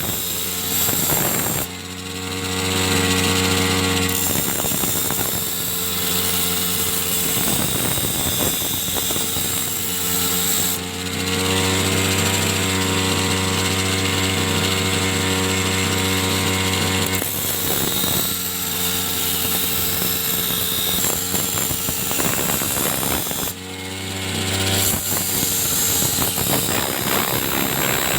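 Power tool grinding to sharpen a brush cutter blade: the motor runs steadily, with three louder grinding stretches, the longest of them several seconds long.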